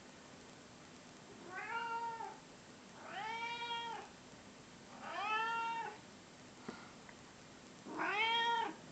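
A cat meowing four times, each meow rising then falling in pitch and lasting just under a second. There is a faint click between the third and fourth meows.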